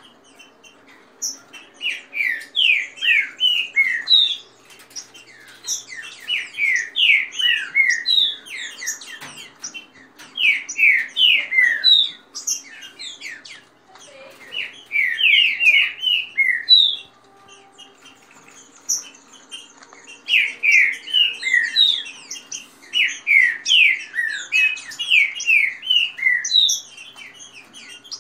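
Caged green-winged saltators (trinca-ferro) singing against each other: repeated bursts of fast, down-slurred whistled notes, each phrase a couple of seconds long with short pauses between, with fainter high chirps around them.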